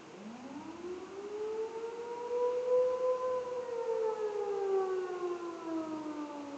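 Outdoor tornado warning siren sounding in a test: one long wail whose pitch climbs over the first three seconds, then slowly falls away.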